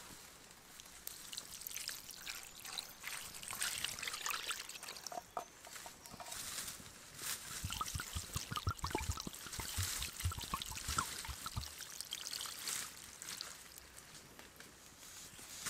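Red wine poured from a glass bottle onto meat in a cast-iron pot, a splashing trickle with bubbly gurgles that tails off shortly before the end.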